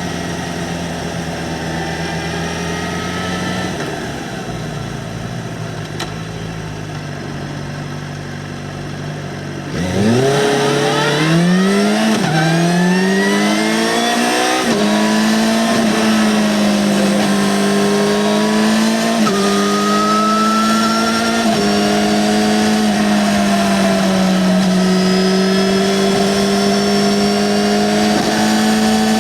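2009 Yamaha XJ6-N's 600 cc inline-four on its stock exhaust, running at a steady, lower note. About ten seconds in it accelerates hard, the revs climbing through two quick upshifts, and then it holds a steady, higher-pitched cruise.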